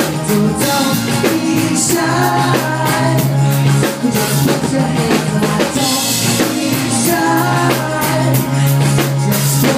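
Live pop-rock band playing through a PA: a drum kit keeping a steady beat under a bass line, with a male lead vocal singing into a handheld microphone.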